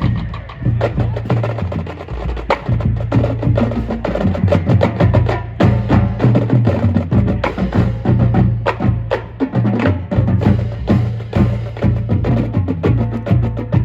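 High school marching drumline playing: dense, rapid snare drum strokes over low bass drum notes that step between pitches.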